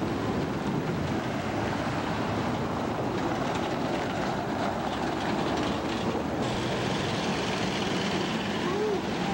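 Steady street-traffic rumble mixed with wind buffeting the camcorder microphone.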